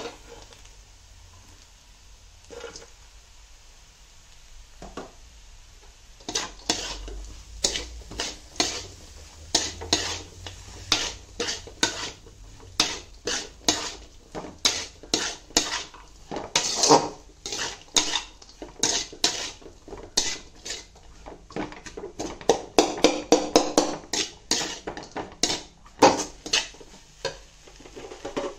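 Steel spatula scraping and clanking against a hammered aluminium kadai as cabbage, egg and vegetables are stir-fried. After a few scattered knocks, the stirring strokes start about six seconds in and come about two a second, with a faster flurry near the end.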